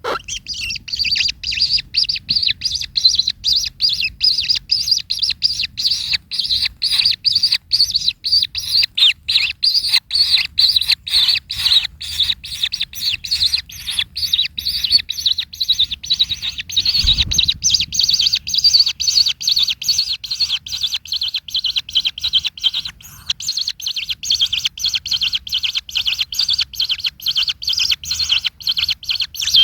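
Kingfisher calling in a fast, unbroken series of sharp, high 'kek' notes, about three to five a second and quickening in the second half. A brief low thump sounds about halfway through.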